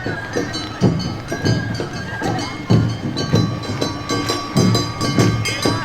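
Awa Odori festival band music: heavy drum beats roughly once a second under steady, high held tones.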